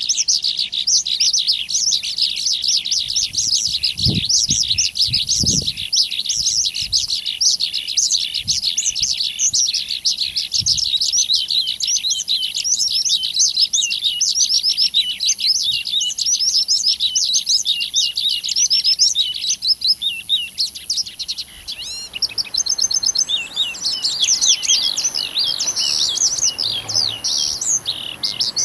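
A dense chorus of many small birds chirping and twittering rapidly, over a steady high-pitched tone. About three-quarters of the way through, the chirping thins and a soft hiss comes in.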